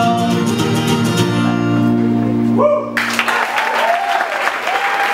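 Acoustic guitar's last strummed chord ringing out and ending, then audience applause with cheers and whoops breaking out about three seconds in.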